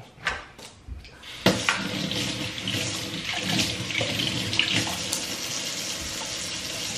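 A few light taps, then a kitchen pull-down faucet is turned on about a second and a half in and runs steadily into the sink, water splashing as makeup brushes are rinsed.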